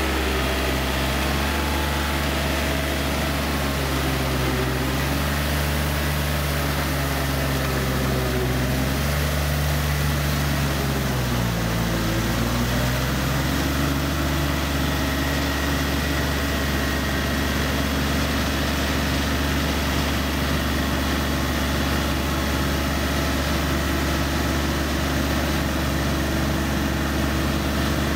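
Yanmar EF393T four-wheel tractor's diesel engine running steadily while the tractor tills a wet rice paddy with its rotary tiller. About halfway through, the engine pitch sags and wavers briefly, then settles again.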